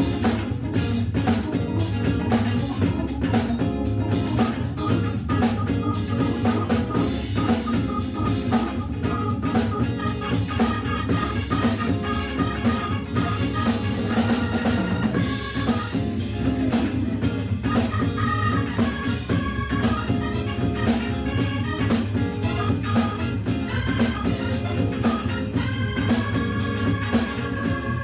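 Jazz organ trio playing: a Hammond B3 organ through a Leslie speaker holds chords over a steady drum-kit groove, with a high organ chord held near the end.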